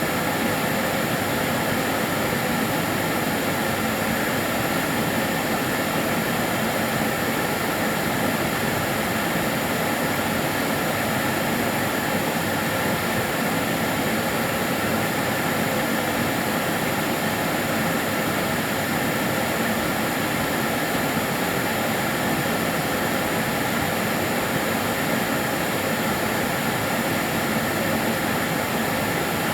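Karcher DS 6 Premium water-filter vacuum cleaner running steadily: an even rush of air with a few faint steady tones from the motor over it.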